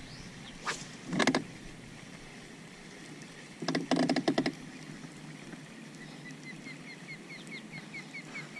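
Two short rattling noises, about a second in and again near the middle, then a bird calling a run of quick, repeated high chirps, about three a second, for the last few seconds.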